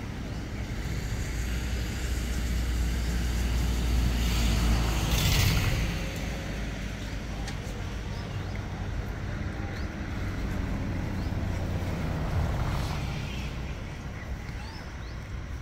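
Road traffic passing nearby: a low rumble that swells and fades as vehicles go by, loudest about five seconds in, with a second, smaller pass near the end.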